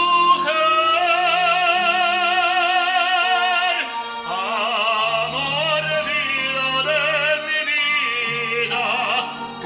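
A man singing a Spanish love song in an operatic style with strong vibrato, over an instrumental backing with a bass line. He holds one long note for the first few seconds, then moves through a new phrase.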